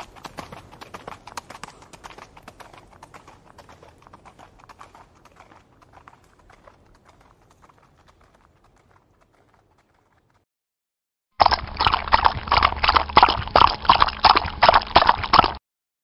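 Horse hoofbeats: a fast, dense run of hoof clicks that fades away over about ten seconds. After a second of silence, a louder run of rhythmic hoofbeats, about four a second, starts abruptly and stops abruptly about four seconds later.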